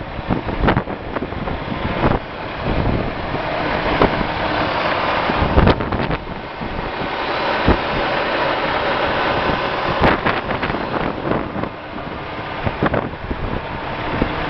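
Wind buffeting the microphone in uneven gusts over a steady rushing noise, with occasional handling knocks.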